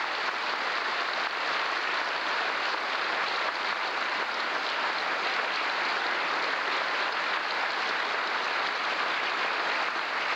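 An audience applauding in a long, steady round of hand clapping.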